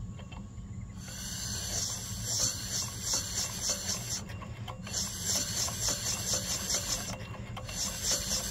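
Homemade pipe-built piston engine, a copper cylinder with a valve, running on vacuum suction: air rasps through its valve and ports in rhythmic hissing puffs, about two to three a second. It starts about a second in as the flywheel gets going, and there are two short breaks.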